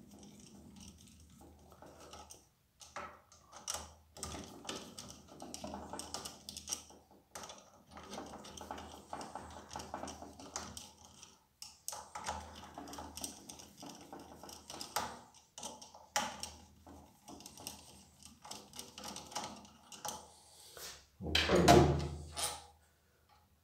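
Hand ratchet clicking in quick runs as the pressure washer pump's mounting screws are backed out one after another, with small metallic taps between. A louder knock near the end.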